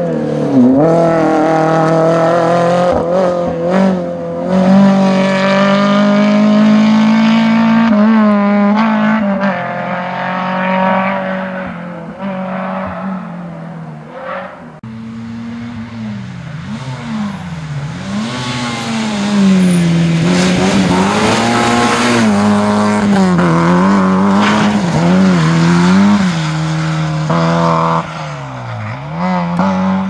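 Rally car engines on a gravel stage. A Renault Clio's four-cylinder is revved hard up through the gears as it drives away and fades, then a Peugeot 106 is heard approaching, its revs repeatedly rising and dropping with gear changes and lifts, along with a hiss of tyres and gravel as it comes close.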